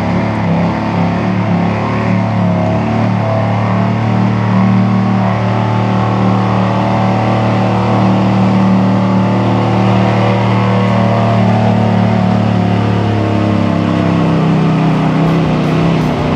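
Ram pickup truck's engine pulling a weight-transfer sled under heavy load, held loud at steady revs, easing off near the end as the pull finishes.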